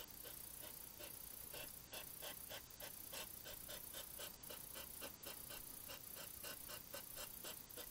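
Hedgehog huffing in quick, even puffs, about four a second: the snorting of hedgehog courtship, with one hedgehog pressed up against another.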